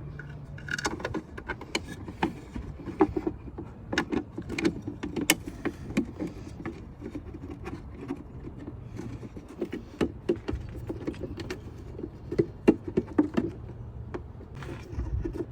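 Irregular light clicks and taps of plastic intake parts and small Allen screws being handled. The mass airflow sensor and its gaskets are being lined up on the cold air intake.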